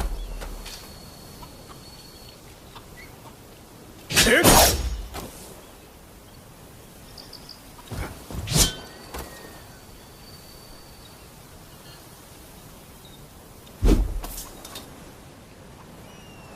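Oxtail sword being swung and struck: a strike at the very start, a long whoosh about four seconds in, two quick hits near the middle, and a sharp impact near the end. The blade rings with a thin high metallic tone for a second or two after the first strike and after the second quick hit, over a steady outdoor background with faint bird chirps.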